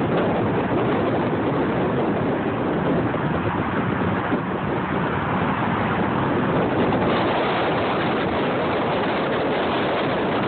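Steady road and wind noise of a car travelling at freeway speed, an even rush with no engine note standing out.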